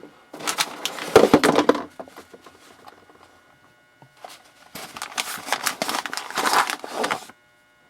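Plastic packaging crinkling and rustling as it is handled, in two bouts: one near the start lasting a second and a half, and another in the second half lasting about two and a half seconds.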